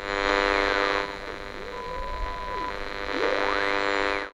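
Logo-intro sound effect of radio static: a hiss with a low steady hum under it, a whistling tone sliding down, a steady beep in the middle, then a whistle sweeping up and back down, like a shortwave dial being tuned. It cuts off suddenly near the end.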